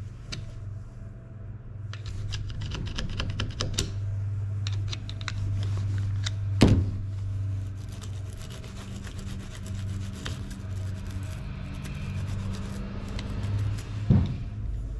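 A small screwdriver scraping and clicking inside the metal body of a Suzuki Bandit 1200 vacuum fuel petcock, working out the gunk, with a sharper knock about two thirds of the way in and another near the end. A steady low hum runs underneath.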